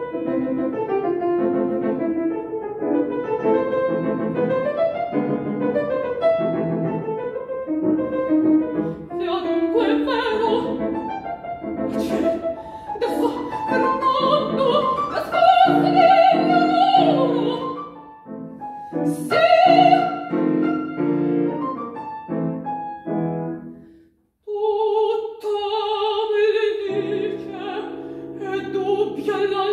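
A woman singing in classical operatic style, accompanied by a grand piano. The music breaks off briefly near the end, then resumes with a long held sung note over piano chords.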